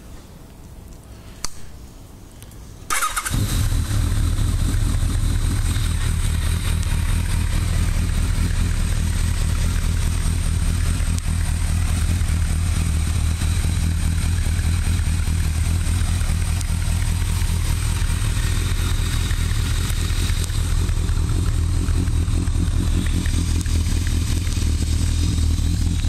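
Kawasaki ZRX1200R inline-four motorcycle engine, breathing through a Vega Sports carbon slip-on muffler, fires up about three seconds in after a brief click, then idles steadily.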